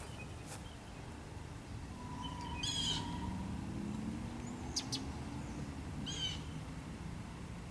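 A bird calls twice, about three seconds apart, each call a quick run of high chirping notes, over a low background rumble.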